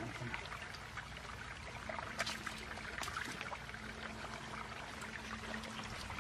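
A hand groping and scooping in a small pit of muddy water, with scattered small splashes, sloshing and trickling.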